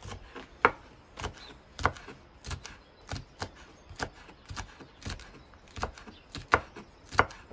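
Kitchen knife chopping fresh green fava bean pods into rounds on a wooden cutting board, each stroke a sharp tap of the blade on the board, about two strokes a second.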